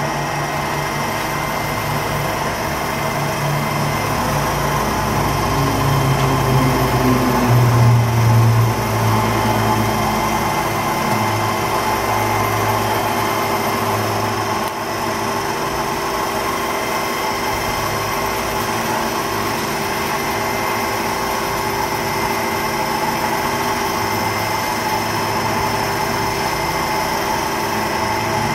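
Toyoda CNC cylindrical grinder running under power: a steady machine hum with several steady tones. A lower drone rises and grows louder about six to nine seconds in, then settles back.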